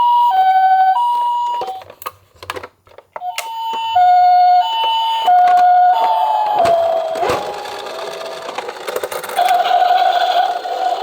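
Toy ambulance's electronic two-tone siren, a high and a low note alternating evenly in the Japanese "pee-po" pattern. It breaks off for about a second with a few clicks, starts again, and after about six seconds turns rougher and noisier.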